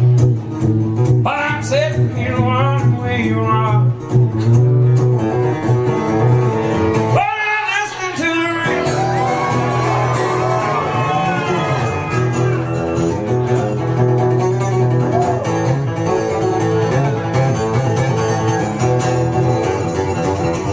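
Steel-string acoustic guitar played solo through an instrumental break, strummed and picked in a steady rhythm.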